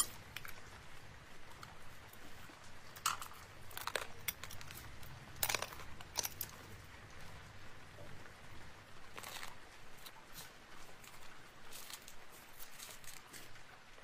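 Fingernails and fingertips tapping, scratching and rubbing over a journal page thickly covered in glued rhinestones, crystals and glitter, with light crinkling of paper and embellishments. Irregular clicks and scrapes come a second or two apart, the sharpest a little after five seconds in.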